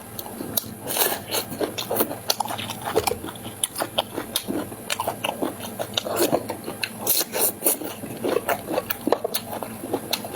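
Close-up eating sounds: a person biting and chewing food, with many irregular small clicks and crunches.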